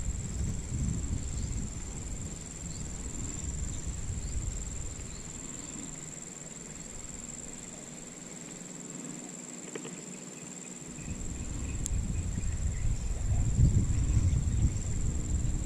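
Wind rumbling on the microphone. It eases off for a few seconds in the middle and gusts up again near the end, over a steady high-pitched insect drone.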